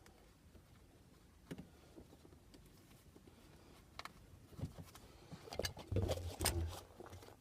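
Plastic cable tie being fastened around a leather gear-stick gaiter: a few scattered clicks, then near the end a quick run of clicks and rustling with dull knocks as the tie is pulled tight.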